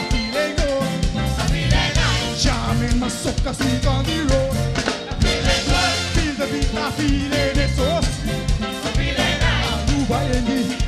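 Soca band music played live, with a steady driving beat.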